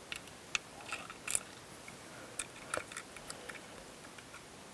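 Irregular small clicks and taps of metal parts being handled: a tiny machine screw and a red-dot sight being fitted onto a pistol slide.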